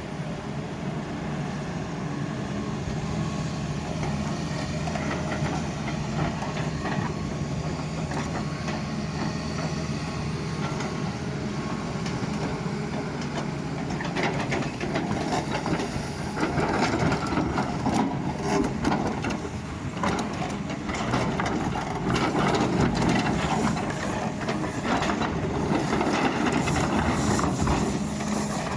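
Doosan excavator's diesel engine running steadily, growing louder and rougher about halfway in, with the bucket scraping and knocking through earth and stones.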